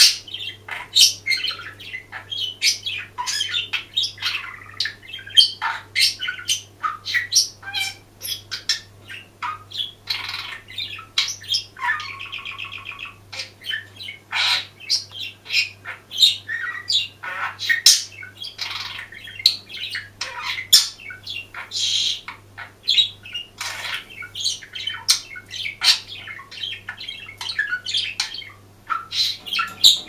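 Budgerigar warbling: a continuous run of rapid chirps, clicks and squawks, with a longer buzzy note about twelve seconds in.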